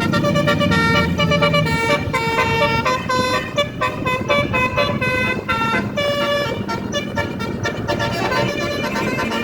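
Basuri telolet multi-tone bus horn playing a fast tune of short, changing notes over a low steady rumble.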